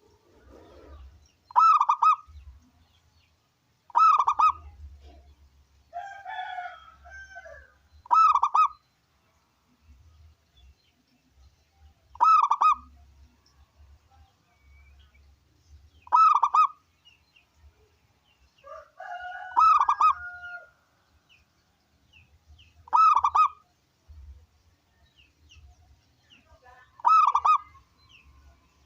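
Zebra dove (perkutut) cooing: a short, loud call repeated about every four seconds, eight times in all. A different, lower call sounds twice, about six seconds in and again near twenty seconds.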